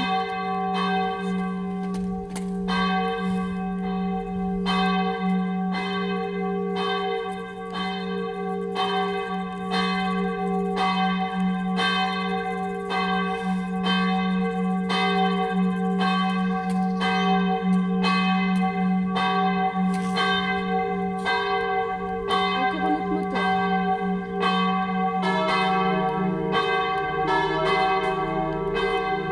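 A swinging church bell of Saint-Bénigne's four-bell ring starts ringing, its strokes falling at an uneven, limping rhythm. A second, lower-pitched bell joins in about 25 seconds in, as the ring builds toward the full peal of all four bells.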